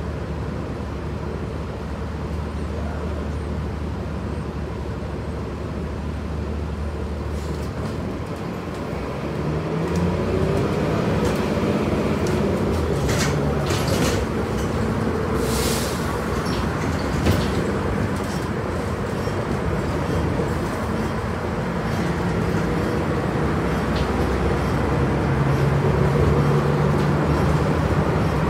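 Inside a city transit bus: a steady low engine hum, then from about ten seconds in louder engine and road noise, the engine pitch rising and falling as the bus gets under way. A few short knocks and rattles of the bus body and fittings come between about twelve and seventeen seconds, the sharpest near seventeen seconds.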